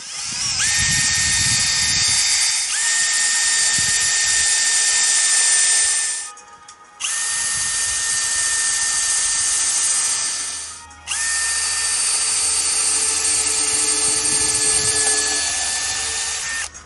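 Power drill running in three long runs, its motor whine rising briefly at the start of each, while pilot holes are pre-drilled into wood.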